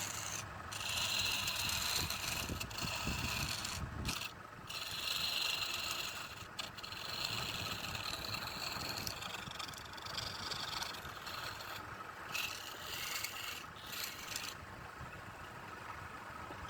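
A tool scraping against spinning wood on a woodturning lathe: a steady rasping hiss that breaks off briefly several times as contact lifts, and grows lighter near the end.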